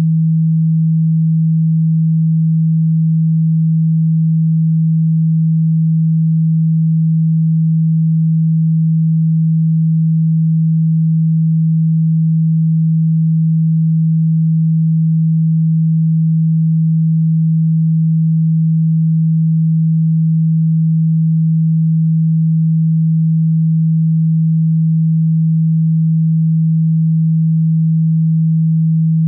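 A steady, low, pure electronic tone held at a single pitch without any change.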